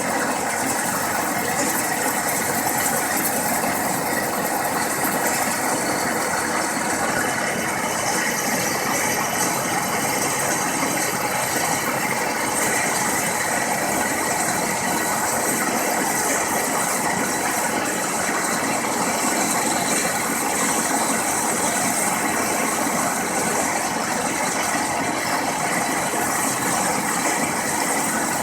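Okamoto PSG 63 surface grinder running, a loud, steady, unbroken mechanical noise.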